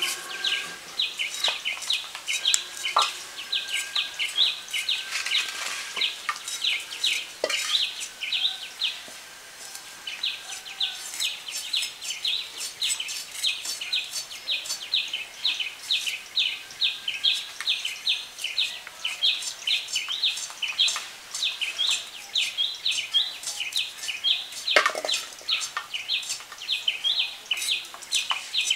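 Small birds chirping rapidly and without let-up, several short chirps a second, with a short lull about ten seconds in. A few knocks and scrapes from a blade peeling taro corms come through underneath.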